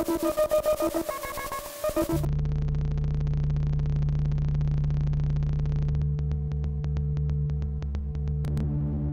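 Electronic synthesizer loop from a patched Emona TIMS modular system run through a germanium Darlington Harmonic Percolator fuzz: a fast pulsing note pattern with a bright fuzzy edge, which changes abruptly about two seconds in to a steady low buzzing drone. About six seconds in a ticking pulse of roughly four a second joins the drone, and the tones shift again near the end.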